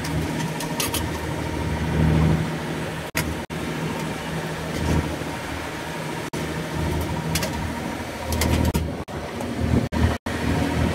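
A fishing boat's engine running steadily as a low, even hum, broken by a few brief cuts in the audio.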